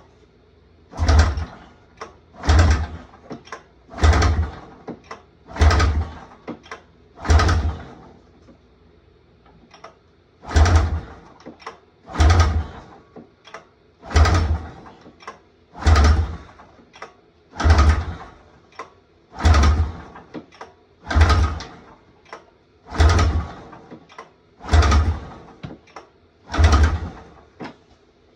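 Rebuilt Polaris snowmobile's two-stroke engine being pull-started over and over, about fifteen hard pulls on the recoil starter at roughly one every two seconds, with a short pause partway through. The engine turns over on each pull but never catches, because no fuel is getting through.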